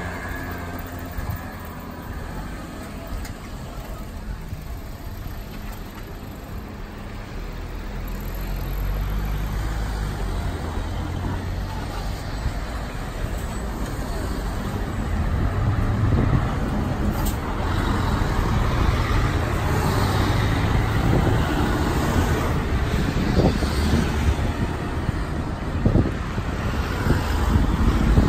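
Road traffic passing on a city street: car and bus engines running and tyre noise, growing louder over the second half.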